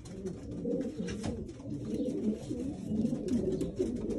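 Racing pigeons cooing in the loft: several low, wavering coos overlapping throughout.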